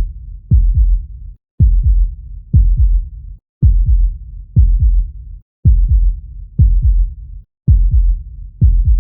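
Human heartbeat sound, a steady low double thump (lub-dub) about once a second, with a brief drop to silence every two seconds.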